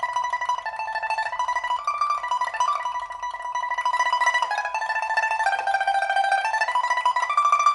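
Solo pipa playing a slow melody, each note held by rapid tremolo plucking, on an African rosewood pipa fitted with a new soundboard and frets and being tried out after the repair.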